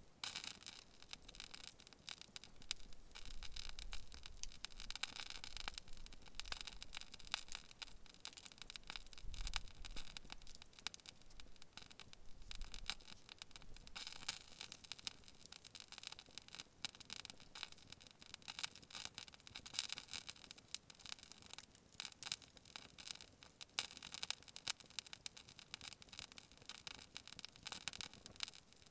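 Spruce-sap candle burning with a birch-bark wick, the resin crackling and spitting faintly in quick irregular ticks.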